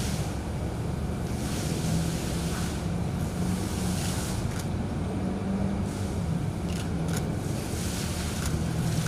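Steady low rumble and hiss of background noise, with a few faint clicks around the middle.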